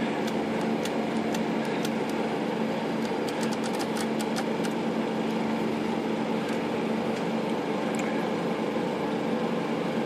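Small sharp metal clicks from a Smith Corona Skyriter portable typewriter's carriage and left margin stop being worked by hand, many in the first few seconds and only a few after, over a steady hum.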